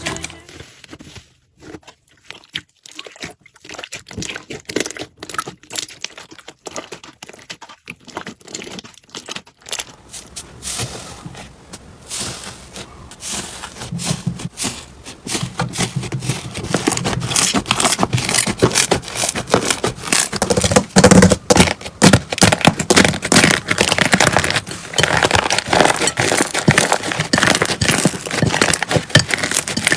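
Slime being squeezed and pressed by hand, a dense run of small crackles and pops. It is sparse and soft for about the first third, then louder and busier.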